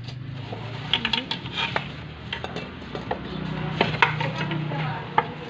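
Metal spoons and dishes clinking and knocking against bowls and a stone mortar as gado-gado is put together: a string of sharp, irregular clinks, the loudest about four seconds in, over a low steady hum.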